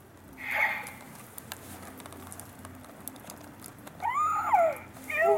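A man's high-pitched, wavering vocal squeals, rising and then falling in pitch, about four seconds in, with a shorter one near the end.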